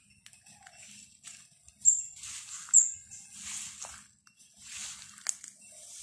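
Footsteps swishing through grass at a slow walking pace, with two short, sharp high chirps about two and three seconds in that are the loudest sounds.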